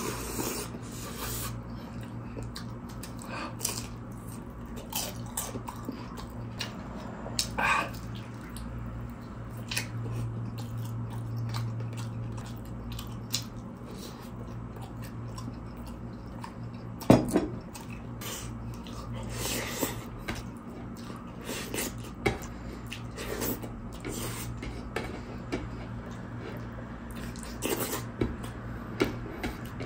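Close-up mukbang eating sounds: sipping from a bowl, then wet chewing and lip smacks of rice, pork in coconut sauce and spring rolls eaten by hand, with scattered small clicks of dishes and one louder knock about 17 seconds in. A steady low hum lies underneath.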